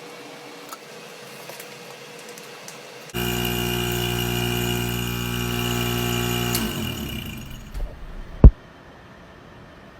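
Steady electrical buzzing hum from the heat pump training rig as its cord is plugged in and components energize; it starts suddenly about three seconds in, stops about three and a half seconds later with a brief falling tail, and a single sharp snap follows near the end.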